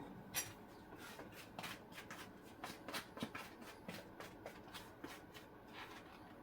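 Small, irregular kitchen handling sounds: a quick run of light clicks and rustles that dies away near the end.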